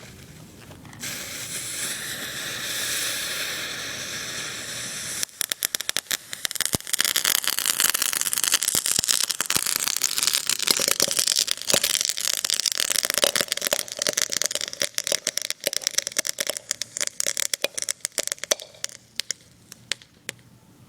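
Fountain fireworks in a homemade cardboard-tube rocket igniting with a steady hiss about a second in, then breaking into dense crackling from about five seconds that thins out and dies near the end. The fireworks burn out without the rocket flying; they burn through the launch pad.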